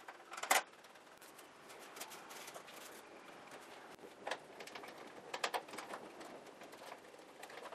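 Light clicks and knocks of hands handling plastic model parts and hardware on a table, over faint room hiss. The loudest comes about half a second in, with a few more around four and five and a half seconds.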